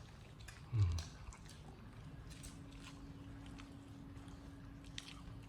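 Soft chewing and biting clicks from a baby monkey eating, with one dull low thump a little under a second in. A faint steady hum runs underneath from about two seconds in.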